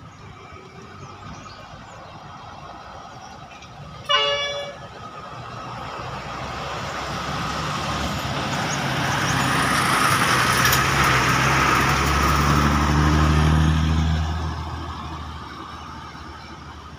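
A Kemenangan intercity bus's diesel engine and tyres pass close by, the sound swelling to its loudest and then fading away, with the engine note rising a little as the bus speeds up. A short, loud horn toot sounds about four seconds in.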